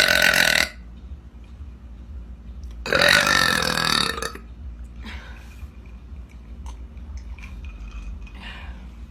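A girl burping: the tail of a long, loud burp that ends less than a second in, then a second long burp about three seconds in that lasts about a second and a half.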